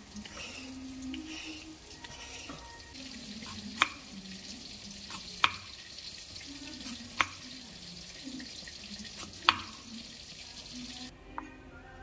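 Kitchen knife slicing a raw carrot into rounds and knocking down onto a wooden chopping board: four sharp knocks, spaced about one and a half to two seconds apart.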